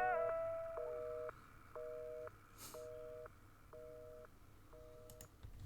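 Telephone busy signal closing out a rock song: a two-note beep about half a second long, repeating about once a second, five times.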